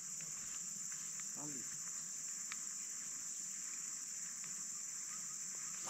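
A steady, high-pitched drone of insects in tropical forest, with a few faint ticks and a sharper click near the end.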